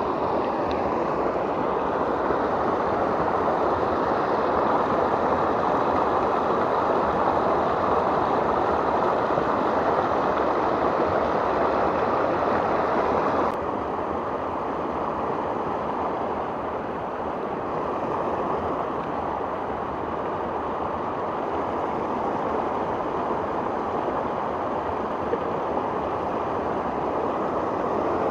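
A small river rushing over rocky rapids: a steady rush of white water, which drops a little in level about halfway through.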